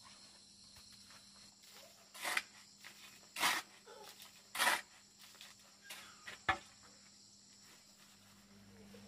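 A shovel scraping and scooping into a pile of gravelly soil three times, about a second apart, with smaller scrapes after and a sharp knock about six and a half seconds in. A steady high insect buzz runs underneath.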